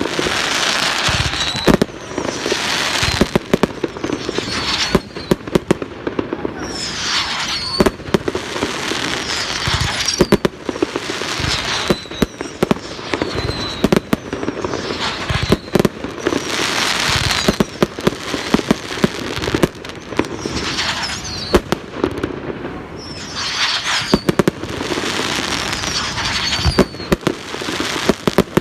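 Fireworks display: a rapid, unbroken barrage of bangs and crackling, with short whistles recurring among them.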